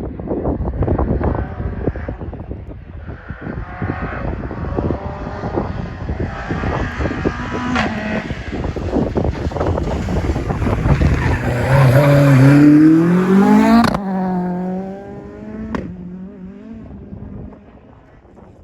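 Renault Clio 172 F2000 rally car's 2.0-litre four-cylinder engine driven hard as it approaches, its note climbing to a peak, then dropping suddenly about fourteen seconds in and fading as the car passes and moves away.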